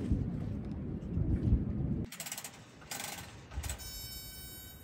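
Low rumbling and thumps at first. Then the knob of a round convection kerosene heater is turned in short ratcheting bursts, followed by a steady high electric buzz from the heater's igniter as it is lit.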